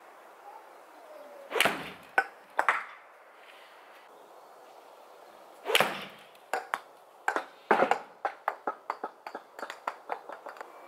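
Golf ball struck with a 7-iron off a coir doormat: one sharp crack, then the ball drops onto patio paving slabs and bounces, the clicks coming quicker and quicker and fading. About two seconds in, a sharp knock and two short taps come before the shot.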